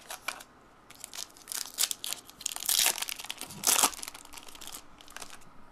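Trading card pack wrapper crinkling and tearing as a pack of 1998 Topps Stars football cards is opened by hand, a run of crackles about a second in that grows loudest around the middle and dies away near the end.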